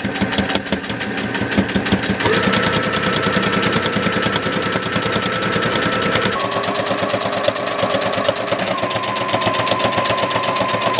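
Brother electric sewing machine running at speed, stitching a straight hem through folded cotton fabric: a fast, even clatter of needle strokes over the motor's whine. The whine steps up in pitch about two seconds in and drops again a little past the middle as the speed changes.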